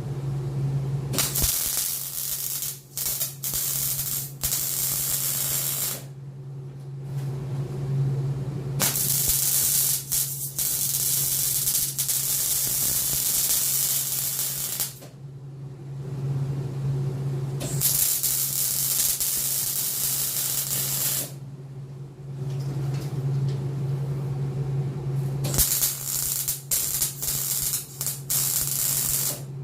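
Arc welding: four runs of crackling, hissing arc, each a few seconds long with short pauses between, over the welder's steady low electrical hum. It is a weld bead being run on a steel angle bracket.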